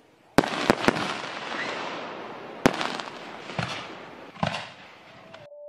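Fireworks going off: a series of sharp bangs with crackling in between, the strongest about two and a half seconds in, then fading away. Music comes in at the very end.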